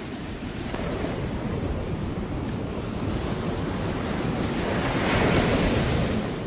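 Surf washing onto a sandy beach, swelling to its loudest about five seconds in and falling away just before the end, with wind buffeting the microphone.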